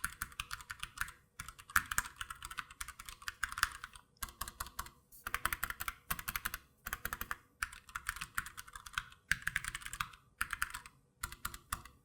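Typing on a Glorious GMMK mechanical keyboard with brown tactile switches: quick runs of key clacks about a second long, with short pauses between them. The sound is the keys bottoming out at the end of their travel, not a clicky switch.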